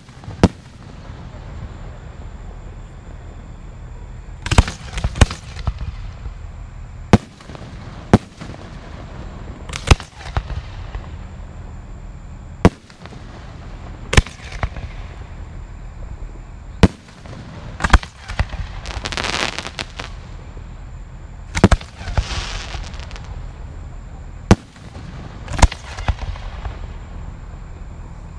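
Aerial firework shells bursting, with about fifteen sharp bangs a second or a few seconds apart. Two of the bursts, around two-thirds of the way in, trail off in a longer hiss.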